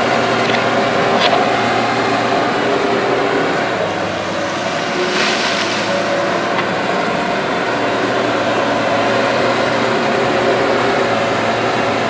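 A JCB tracked excavator's diesel engine runs steadily under digging load. About five seconds in there is a brief rushing noise as earth and rock pour from the raised bucket.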